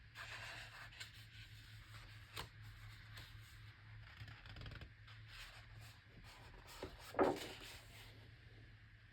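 Pages of a large, oversized hardcover art book being turned by hand: faint paper rustling and soft clicks, with a louder soft thump about seven seconds in as a page lands.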